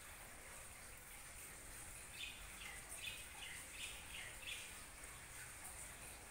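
A bird chirping: a quick run of about six short, falling chirps, starting about two seconds in and ending around halfway, over a faint steady hiss.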